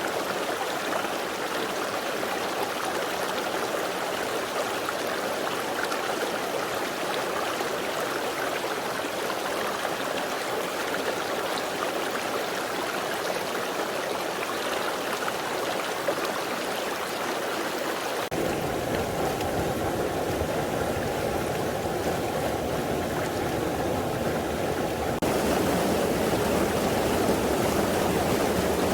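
Mountain stream water rushing steadily over rocks. The sound changes abruptly twice, about two-thirds of the way in and again near the end, where it gets louder, as different stretches of the stream are cut together.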